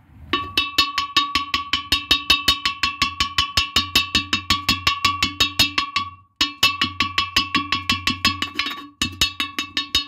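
A piece of china scraped fast back and forth against the inside of a vitreous china toilet bowl, about six strokes a second. Each stroke sets the bowl ringing with a steady clear tone. It stops briefly about six seconds in and again near nine seconds, as dark mineral deposits are scraped off the porcelain.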